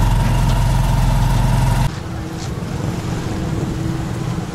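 Motorcycle engine of a sidecar tricycle running steadily while the trike is being ridden, heard from inside the sidecar. About two seconds in it cuts off abruptly to a quieter, even street background with a faint steady hum.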